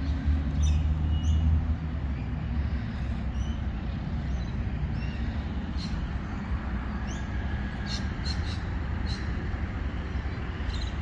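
Outdoor ambience: a steady low rumble with small high bird chirps scattered through it.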